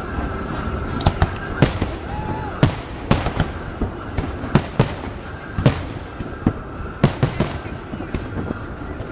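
Fireworks exploding in a rapid, irregular series of sharp bangs, about a dozen loud ones, over a continuous background din.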